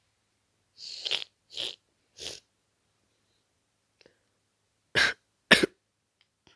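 A person with a head cold coughing: three short, lighter coughs in the first couple of seconds, then two loud coughs about half a second apart near the end.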